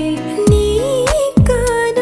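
Background music: a slow melody with drum hits roughly every second.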